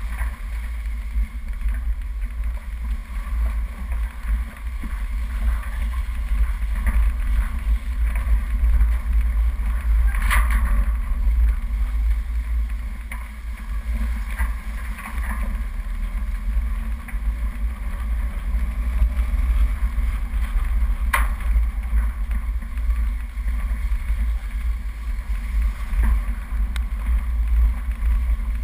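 Off-road vehicle driving down a rough dirt track, heard through a bonnet-mounted camera: a steady low rumble of engine, vibration and wind buffeting on the microphone. There are two sharp knocks, about ten seconds in and again about twenty-one seconds in.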